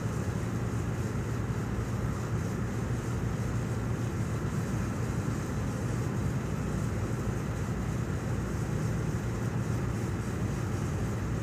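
Steady low drone of a cargo ship's engine and machinery, with an even hiss over it.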